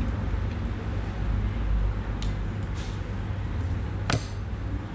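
Steady low background rumble, like traffic or room noise, with a sharp click about four seconds in.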